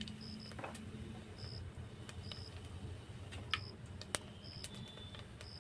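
Cumin seeds frying in hot mustard oil in a pot over a wood fire: a faint sizzle with scattered sharp crackles and pops. Short high chirps, often in pairs, sound now and then in the background.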